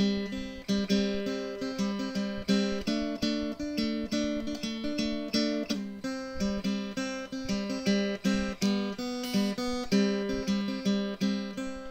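Background music: an acoustic guitar picking notes in a steady rhythm.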